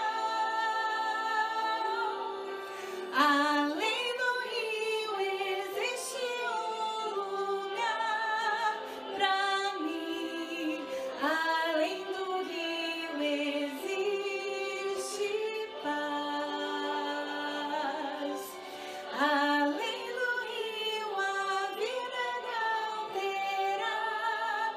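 A woman singing a gospel song in Portuguese, holding long notes with sliding pitch between phrases.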